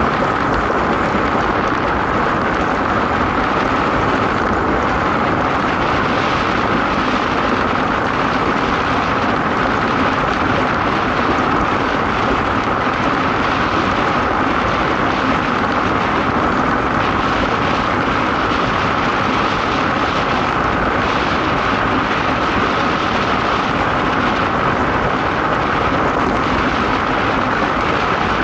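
DN ice boat sailing at speed: its steel runners hiss across the ice with a steady hum, and wind rushes past the microphone, all loud and unbroken.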